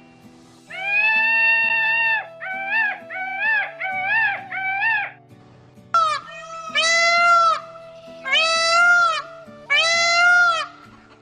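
Peacock calling repeatedly: one long drawn-out call, then four short calls in quick succession. After that come a sharp note and three loud calls about a second and a half apart.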